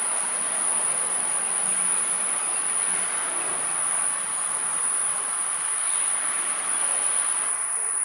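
Steady, high-pitched drone of insects over an even hiss.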